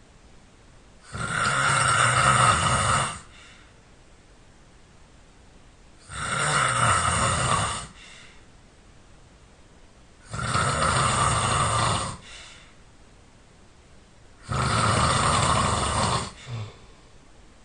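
A person snoring loudly: four long snores of about two seconds each, roughly every four seconds, with much quieter breathing between.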